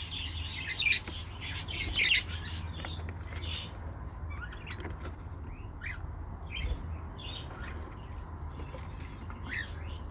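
Budgerigars chirping and chattering: a dense run of short high chirps for about the first four seconds, then scattered calls, over a steady low hum.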